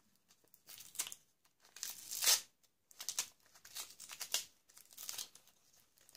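Gift-wrapping paper crinkling and tearing as a wrapped present is worked open by hand, in a series of rustling bursts, the loudest about two seconds in. The wrapping is stubborn to open.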